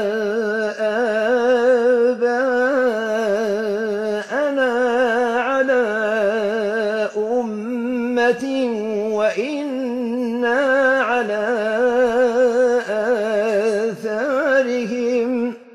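A man chanting the Quran in the Maghrebi tajwid style, long drawn-out melodic notes with a strong vibrato. The voice stops just before the end.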